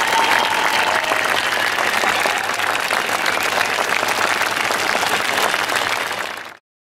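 Concert audience applauding steadily, a dense crackle of many hands clapping; the sound cuts off abruptly about six and a half seconds in.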